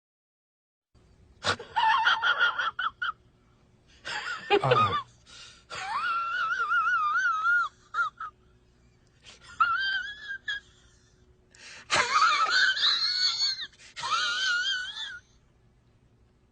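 Wheezing, high-pitched laughter from a laugh sound-effect clip: about six bursts of wavering, squeaky giggling with short breaths between them, starting about a second in over a faint steady hum.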